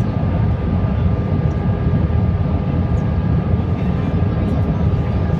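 Cabin noise inside an Airbus A321 descending on approach: a steady low roar of engines and airflow, with faint steady whine tones on top.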